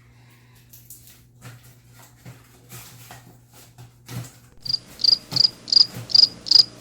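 Timer alarm going off: a run of quick high-pitched beeps, about three a second, starting about two-thirds of the way in, marking the end of the 30-second slime-making time. Before it, faint scattered taps over a steady low hum.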